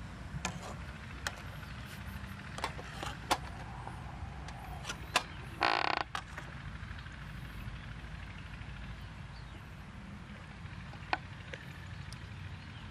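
Metal ladle clinking and scraping against an aluminium cooking pot in a scattering of sharp taps, with one louder, drawn-out scrape about halfway through. A steady low rumble runs underneath.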